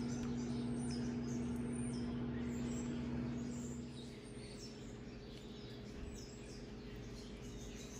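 Faint bird chirps, a few short high calls scattered through, over a steady low hum that stops about halfway.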